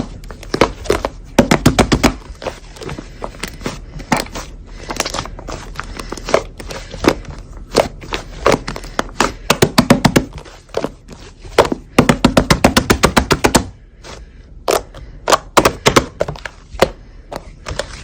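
Slime being pressed and squeezed by hand, crackling and popping in quick runs of sharp clicks, a few of them in rapid bursts.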